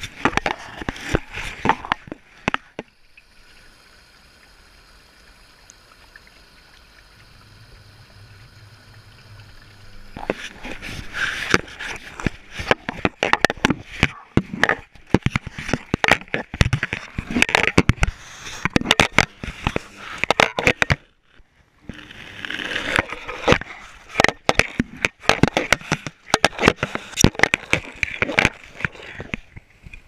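Washing machine drum tumbling a GoPro with wet laundry, heard from the camera itself: rapid knocks and clatter with water sloshing. A quieter lull of several seconds with only a faint steady hum near the start, and a brief pause a little after two-thirds of the way through.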